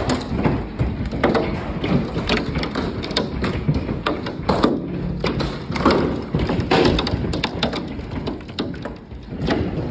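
Large hailstones pelting a wooden deck and the lake, many irregular thuds and sharp taps over a steady hiss of falling hail and rain.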